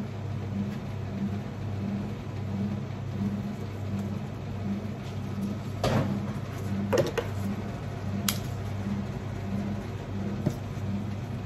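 Steady low machine hum with a tone pulsing a little under twice a second, under a few short rustles and clicks of eucalyptus sprigs being handled and pushed into floral foam, the loudest about halfway through.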